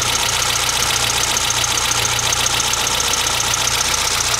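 Mitsubishi van's carburetted four-cylinder engine running steadily at idle, heard from inside the cab.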